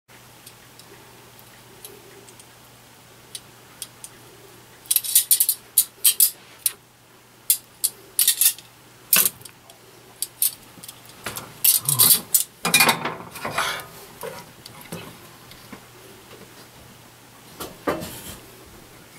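Metal tongs and a spoon clinking and scraping against a stainless saucepan and a ceramic plate as chicken is plated and sauce is spooned over it. The sharp clinks come in clusters through the middle, with one more near the end.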